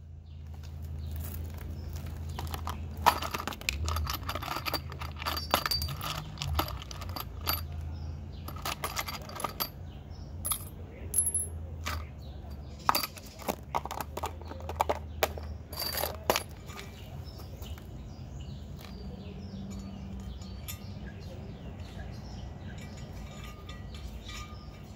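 Small metal clinks and taps as a steel washer, a hex nut and a galvanised post base are handled and set down on concrete around an anchor bolt, then the nut is threaded on by hand. The clinks come thickest in the first half and thin out later, over a low steady hum.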